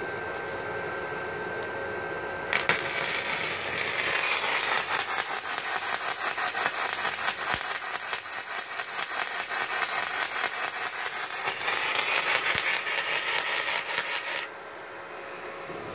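Gasless flux-cored MIG welding arc from a Multipro MIG-MMA/TIG 160 A-SC inverter welder, crackling and spitting for about twelve seconds, striking about two and a half seconds in and cutting off suddenly near the end. The spitting is spatter, typical of welding with flux-cored wire and no CO2 shielding gas.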